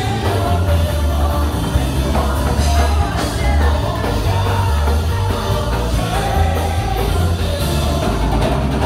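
Loud worship music played through a church's loudspeakers, with a heavy bass line under singing.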